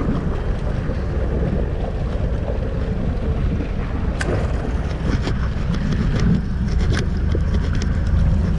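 Wind buffeting the microphone over open sea, with water washing against a boat's hull. A few sharp ticks stand out about four, five and seven seconds in.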